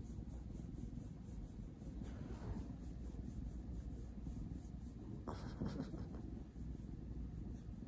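Soft rubbing and rustling of a hand stroking a cat's fur against a quilted bedcover, swelling twice, about two seconds in and again around five seconds.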